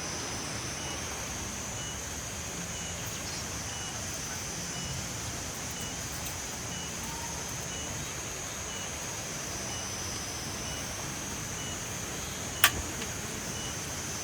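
Steady outdoor campsite background: a constant rushing noise with a high, even insect drone over it and faint regular ticks about once a second. One sharp click sounds near the end.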